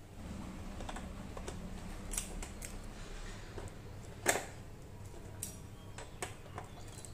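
Scattered light clicks and taps of hands working a cable against the motorcycle's plastic rear trim and handling a folding hex key set, with one sharper click about four seconds in. A low steady hum runs underneath.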